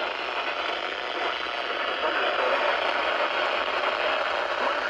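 Steady hiss of radio static from a weather-band radio receiver, with no clear voice.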